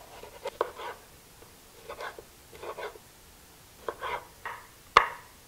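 Kitchen knife slicing and dicing bell peppers on a wooden cutting board: irregular cuts and taps of the blade, with one sharp knock on the board about five seconds in, the loudest.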